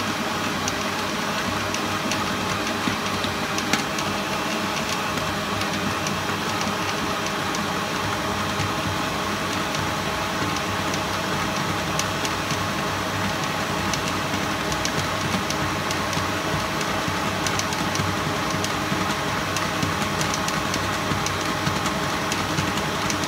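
Kenwood Major stand mixer running, kneading a heavy bread dough: a steady motor hum with faint, irregular ticks.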